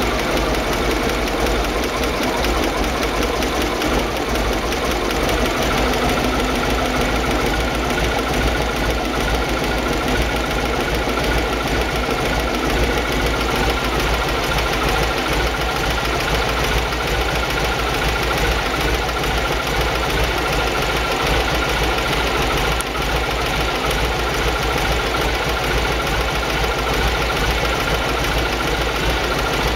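Panhard Dyna Z's air-cooled flat-twin engine idling steadily, fitted with a Colortune see-through spark plug so that the carburettor mixture can be set by the colour of the combustion flame.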